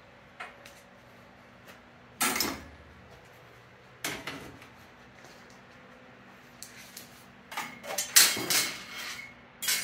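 Metal clanks and rattles from the hinged sheet-metal wheel covers of a metal-cutting band saw being swung open and handled to change the blade. There is a sharp clank about two seconds in and another about four seconds in, then a quick run of clanks with a brief metallic ring near the end.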